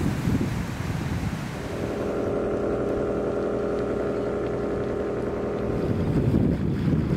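Wind buffeting the microphone, with a steady engine drone that comes in about a second and a half in and stops about six seconds in.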